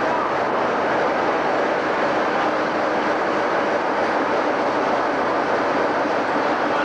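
Class 47 diesel locomotive's Sulzer twelve-cylinder engine idling steadily while the locomotive stands still.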